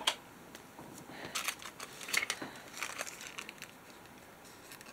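Paper rustling and crinkling as the pages of a handmade journal covered in tissue paper are lifted and handled, in several short scratchy rustles over the first three seconds or so, then quieter.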